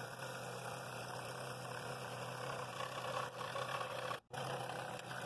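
Scroll saw running and cutting a wooden bowl ring, the blade reciprocating steadily through the wood with a steady hum. The sound breaks off for an instant about four seconds in.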